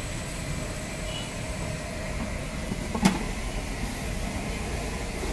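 Steady low rumble of street background noise, with one sharp knock about three seconds in.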